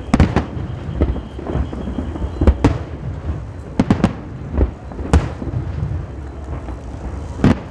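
Aerial fireworks shells bursting overhead: a string of sharp bangs at uneven intervals, some in quick pairs, over a low rolling rumble.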